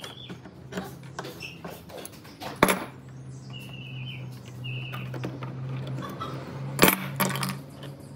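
Steel C-clamps clinking and knocking together as they are handled, with a few sharp metallic knocks, the loudest about two and a half seconds in and near the end. A low steady hum sounds underneath through the middle.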